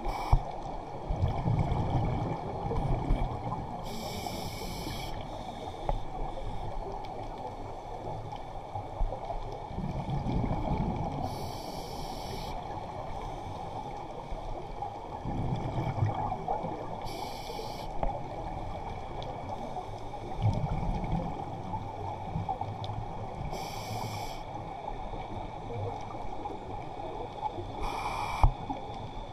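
Scuba diver breathing through a regulator, heard underwater: five inhalations, each a short hiss of about a second, roughly every six seconds, with the low bubbling rumble of exhaled air between them.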